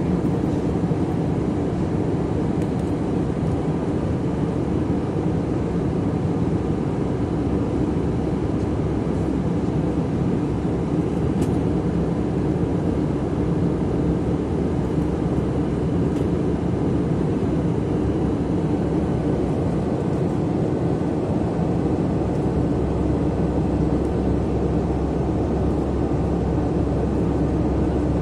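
Jet airliner cabin noise at cruise: a steady, even rushing drone of engines and airflow, heaviest in the low range, with faint steady hums in it. The deep rumble gets slightly stronger about three quarters of the way through.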